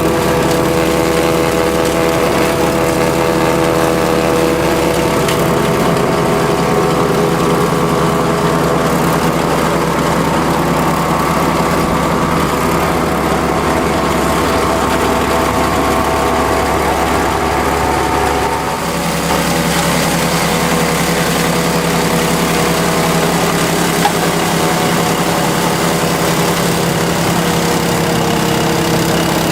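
Kubota L5740 tractor's diesel engine running steadily; its note shifts briefly about two-thirds of the way through, and there is a single sharp click a few seconds later.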